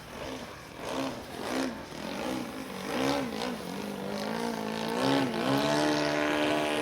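Small model aircraft engine being throttled up and down in short blips several times, then held at a steady high rev near the end.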